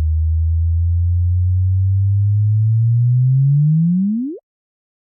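Sonified gravitational-wave chirp of two neutron stars colliding: a low pure tone that rises slowly in pitch, then sweeps up faster and faster and cuts off suddenly a little after four seconds in.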